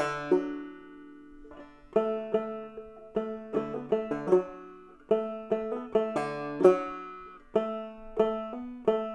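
Five-string banjo played clawhammer style in double D tuning: a struck note at the start rings for nearly two seconds, then a steady run of plucked notes and brushed strums in a lively old-time rhythm.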